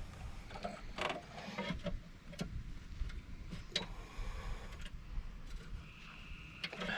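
Scattered metallic clicks and scrapes of a small metal mounting clip being worked onto a sheet-metal tab. The clip has been pinched too tight to slide on easily.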